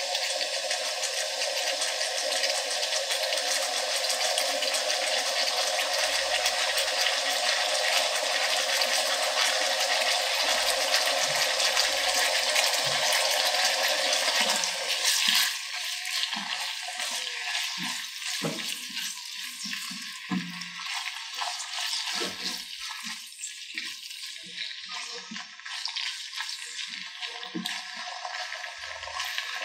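Soy-marinated beef cubes sizzling in hot oil in a nonstick wok: a loud, dense sizzle for about the first half, then a quieter sizzle with scattered pops and crackles.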